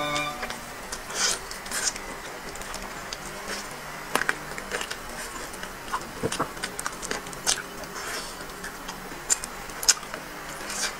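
Close-up eating sounds: chewing roast poultry and pulling the meat off the bone, with irregular sharp mouth clicks and smacks.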